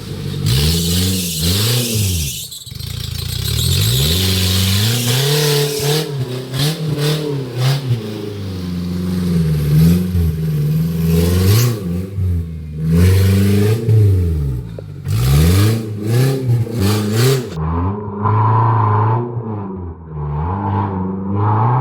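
Off-road competition vehicle's engine revved up and down again and again as it is driven over rocks, with occasional knocks and clatter.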